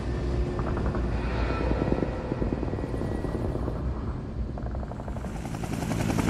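Helicopter in flight, its rotor beating steadily.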